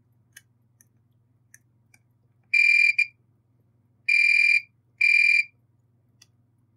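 A multimeter's continuity beeper sounding three times, short steady high-pitched beeps of about half a second each, with faint ticks of the test probe tips on solder joints in between. Each beep marks a direct connection between the two points being probed on the power supply board.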